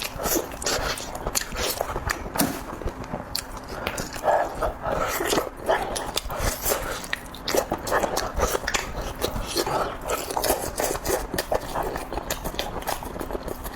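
Close-miked eating: chewing and mouth-smacking with many short, sharp clicks throughout.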